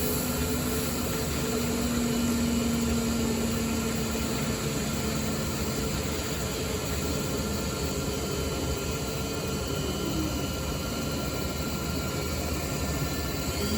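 CNC router cutting a guitar pickguard: the spindle runs steadily under a hiss of cutting noise. Machine tones hold steady, and one of them glides down in pitch about ten seconds in.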